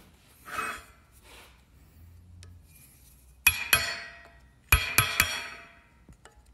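Steel screwdriver tip scraping and clinking against a snap ring and the steel housing of a Metalcloak Duroflex joint as the ring is pushed into its groove. Soft scraping comes first, then sharp ringing metallic clinks, two and then three in quick succession.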